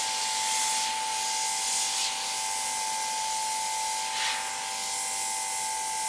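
Airbrush spraying paint: a steady hiss of compressed air.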